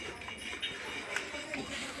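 Faint background music, with a light click about a second in.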